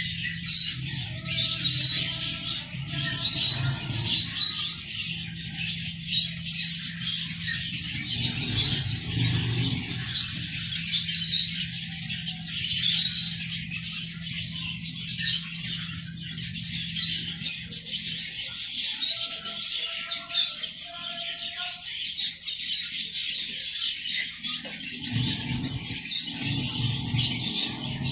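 Ducklings and chicks peeping continuously, many rapid high-pitched peeps overlapping, with a faint low steady hum underneath for most of the time.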